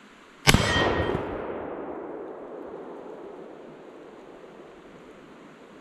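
A single high-powered rifle shot about half a second in, its echo rolling away and fading over the next five seconds.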